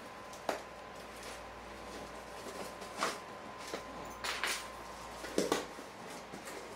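A key slitting the packing tape on a cardboard shipping box: scattered scrapes, taps and rips of tape against the cardboard, with a few louder strokes in the second half.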